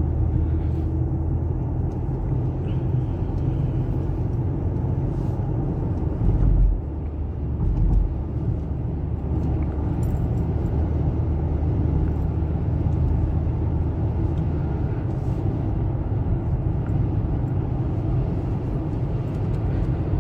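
A car being driven: a steady low engine and road rumble, with two heavy low thumps about six and a half and eight seconds in.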